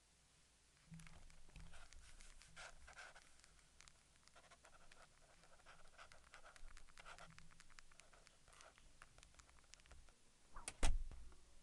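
Faint scratching and rustling of paper and pens on a desk, then two sharp knocks close together near the end.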